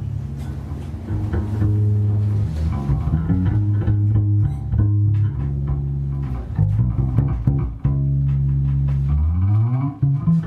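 Freely improvised ensemble music led by a bass: long, held low notes under plucked strings and scattered clicks and taps, with a bass note sliding upward near the end.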